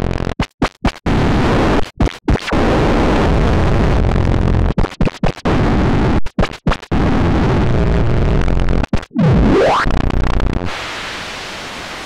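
Synthesized white noise filtered by a parametric equalizer whose bands are swept by an LFO, a loud hiss chopped by a series of abrupt short dropouts. About three-quarters of the way through, a resonant peak sweeps up in pitch. Near the end the noise falls to a quieter, thinner high hiss.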